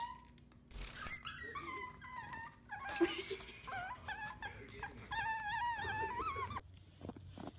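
A small fluffy puppy whining in a string of high, wavering cries as it tries to climb out of its playpen. There is a short rustle about a second in, and the whining stops shortly before the end, leaving faint taps.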